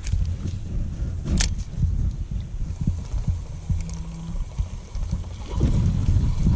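Gusty low rumble of wind buffeting the microphone, with two sharp clicks, one at the start and one about a second and a half in.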